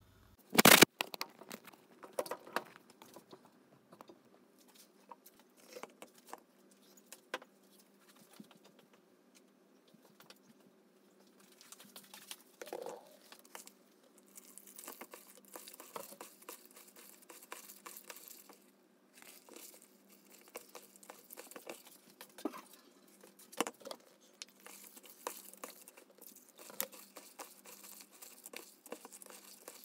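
Dried sea moss being handled and then rinsed by a gloved hand in a plastic bowl of water: crinkling and rubbing, a light watery patter and swishing, and scattered small taps. A sharp knock about half a second in is the loudest sound.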